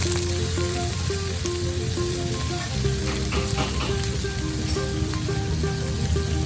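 Food frying in a pan, with a steady sizzle. A light background melody of short repeated notes plays over it.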